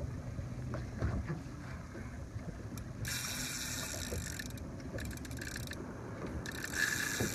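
Shimano Twin Power spinning reel under heavy load from a big tarpon, its gears working, with the drag paying out line in two buzzing runs, one a little after three seconds in and one near the end.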